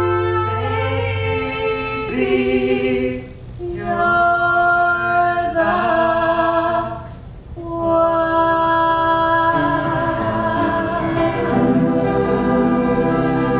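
Two young voices, a boy and a girl, singing a duet over backing music in long held notes, with two short pauses between phrases and a sustained final chord near the end.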